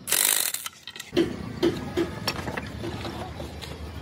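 Corded electric impact wrench running briefly on a gearbox housing bolt, for under a second. About a second in, a low steady hum takes over, with a few light metal knocks.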